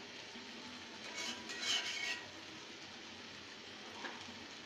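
Spatula scraping and stirring thick potato curry in an aluminium pot, a short cluster of scrapes about a second in and one more faint one near the end, over a faint steady sizzle of the simmering gravy.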